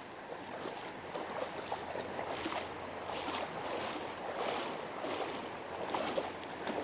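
River water rushing, with short splashes about once or twice a second.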